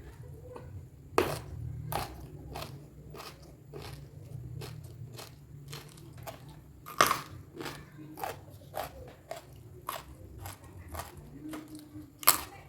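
Close-miked chewing of crunchy raw food: irregular crisp crunching bites, with a few louder crunches standing out, over a low steady hum.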